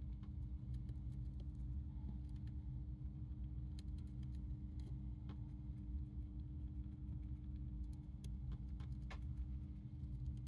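Dwarf hamster nibbling lettuce: faint, irregular little crunching clicks, a few slightly sharper ones near the end. Under them is a steady low hum, louder than the chewing.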